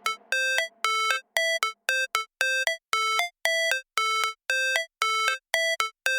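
Background music: a synthesized melody of short, clipped notes repeating about twice a second.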